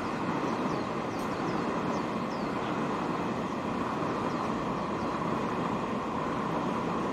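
Steady running noise of a moving vehicle, with a few faint short high chirps over it in the first few seconds.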